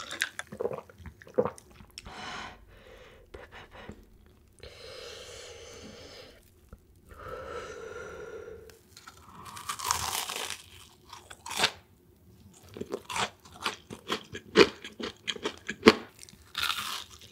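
Close-miked crunching and chewing of crisp fried food, the crackling bites coming thickest in the last few seconds. Two longer stretches of soft hiss sit in the middle.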